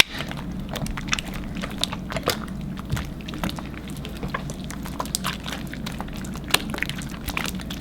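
Freshly activated glue slime being mixed and kneaded by hand, giving a stream of irregular sticky clicks and crackles.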